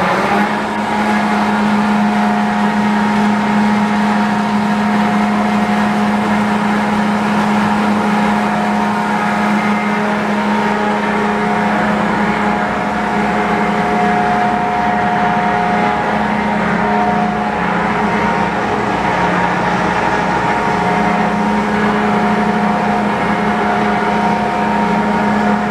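CMC triple roller bar mixer running at high speed: a steady hum with a low drone and a higher whine, reaching full speed right at the start and then holding steady.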